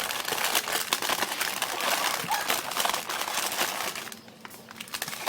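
Packaging crinkling and rustling as ice cream boxes and their wrapped packs are handled and unpacked; dense for most of the stretch, dying down near the end.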